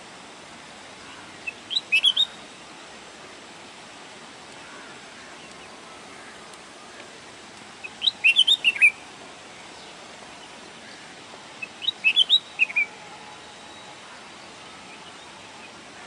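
Red-whiskered bulbul singing: three short phrases of quick, bright notes, several seconds apart, over a steady background hiss.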